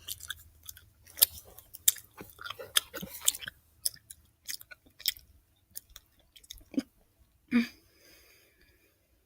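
Close-up chewing of gummy candy, Sour Patch Kids: a run of wet mouth clicks and smacks, dense for the first few seconds and then sparser. A louder short noise stands out about seven and a half seconds in.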